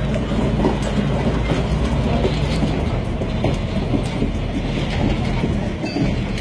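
Heavy construction machinery: a diesel engine running steadily with a low rumble, and irregular metallic clattering and clanks.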